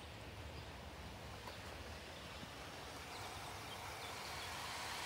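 OO gauge model train running on garden track, a faint steady whirr of wheels and motor that grows gradually louder over the second half as the train comes nearer.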